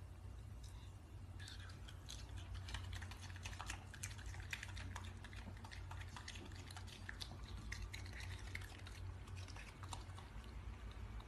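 Raccoon chewing and mouthing fruit: a dense run of small wet clicks and smacks, starting about a second in, over a low steady hum.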